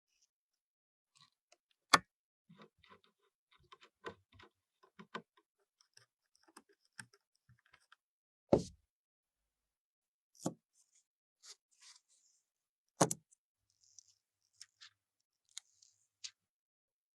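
Scattered light clicks and knocks of computer parts being handled and fitted during a PC build, with four louder knocks spread through.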